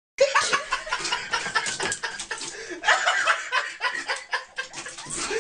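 People laughing and chuckling in short, choppy bursts.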